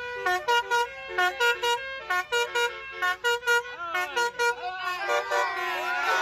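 Basuri multi-tone air horn on a vehicle playing a quick melody of short, loud notes. A few notes slide down in pitch near the end.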